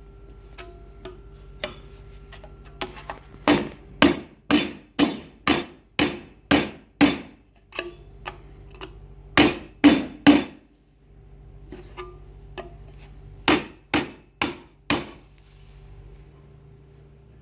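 Hammer blows on a chisel driven between spot-welded steel sheets to split them apart at the weld nuggets. The sharp, ringing strikes come in runs: about eight at roughly two a second, then three, then four. A low steady hum sounds between them.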